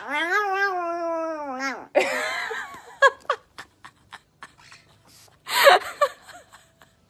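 A dog whining in one long, wavering call, followed by scattered clicks and a short, louder cry near the end.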